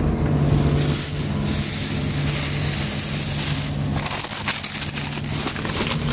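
Plastic grocery bags crinkling and rustling as they are handled, with the crackles coming thicker in the second half, over a steady low hum.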